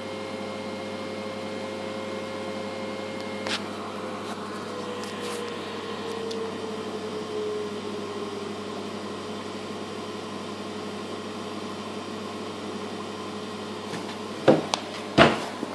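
ECRM Stingray 52 imagesetter running as it outputs a job: a steady mechanical hum with a tone that slides slowly lower between about four and nine seconds in. A click about three and a half seconds in, and two loud knocks near the end.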